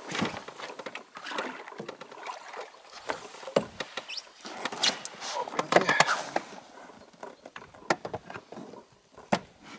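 Handling noises in an inflatable boat: a plastic box being opened and gear being moved, giving scattered clicks, knocks and rustling at irregular intervals.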